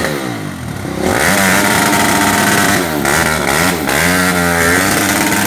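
250 cc off-road motorcycle engine revving hard on a steep rocky climb, the revs sagging about half a second in and again near the middle before rising and holding high, with the rear tyre spinning for grip.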